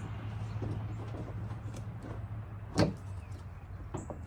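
A single sharp plastic clunk about two-thirds of the way through as the headlight assembly is set into its mount, with a few light clicks near the end, over a steady low hum.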